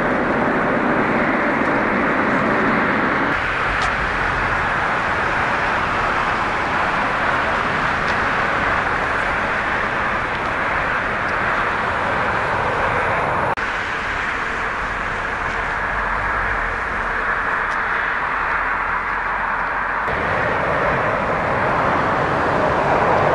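Jet engine noise of large airliners: a Boeing 747-400 freighter climbing out on takeoff, then a Boeing 777-300ER and another 747-400 freighter on approach to land. A steady, even noise whose tone shifts abruptly about 3, 13 and 20 seconds in.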